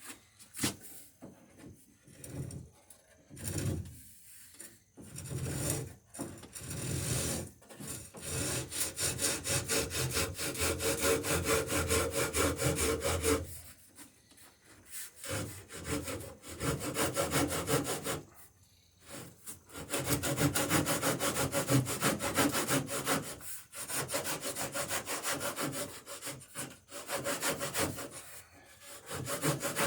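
Handsaw cutting through the end of a wooden hull plank, going back and forth in quick strokes, in several runs with short pauses between them.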